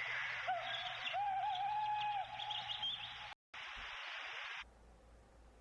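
A bird-like whistled call, one held, wavering note with fainter higher calls, over steady tape hiss. The hiss drops out for an instant and stops about a second before the end.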